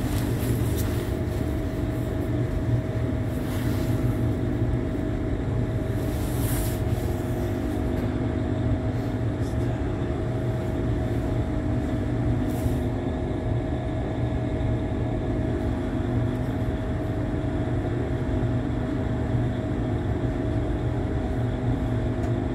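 Passenger train running, heard from inside the carriage: a steady low rumble with a constant hum, and a few brief rattles in the first several seconds.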